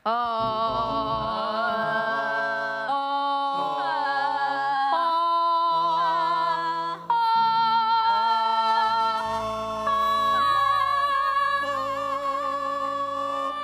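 A voice singing a vocal exercise, holding long notes with vibrato one after another, the pitch shifting every second or two, over held chords underneath.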